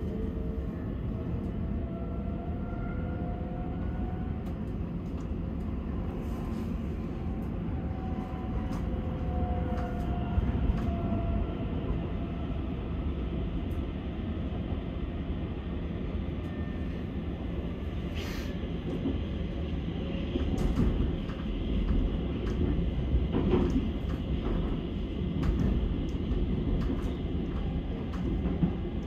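Stockholm metro train running, heard from inside the carriage: a steady rumble of wheels on rails with scattered clicks, and a faint whine shifting in pitch in the first ten seconds or so. The rumble grows louder in the second half as the train runs through the tunnel.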